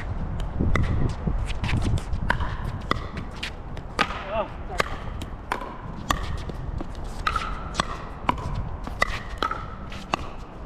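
A pickleball rally: a quick, irregular series of sharp pops from paddles striking the plastic ball, several every couple of seconds, many with a short ring. Low wind rumble on the microphone runs underneath.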